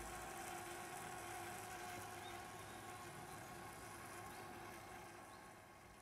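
Portable gas stove burner hissing steadily under a stainless steel kettle of heating water, with a few faint steady tones, fading out near the end.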